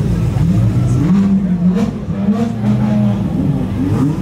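Lamborghini Murciélago V12 engine creeping along at low revs, its note rising and falling with light throttle.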